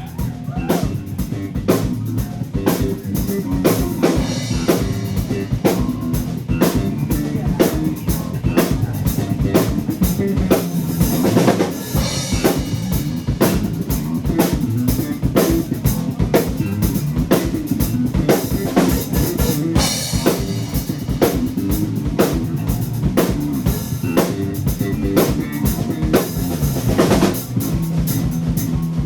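Live heavy blues-rock band playing an instrumental passage: electric guitar and bass over a steady, driving drum kit beat with cymbal crashes.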